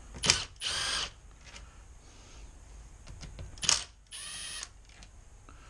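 Cordless Milwaukee Fuel driver spinning out cam phaser bolts in two short bursts, about three seconds apart. Each burst opens with a sharp hit and runs on as a brief steady motor whine.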